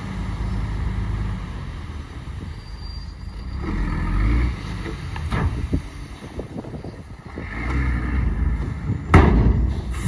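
Heavy diesel earthmoving machinery running, its engine swelling louder twice, with scattered knocks and one sharp, loud knock about nine seconds in.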